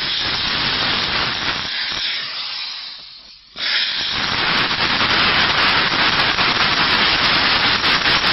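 Steam cleaner jetting steam onto a car's fabric headliner with a loud hiss. The hiss fades out about three seconds in and cuts back in about half a second later. In the last few seconds there is a fast scrubbing rub of the nozzle against the headliner.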